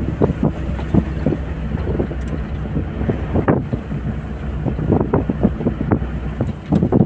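Vehicle engine running steadily, heard from inside the cabin, with frequent irregular knocks and bumps as the vehicle jolts along a rough dirt track.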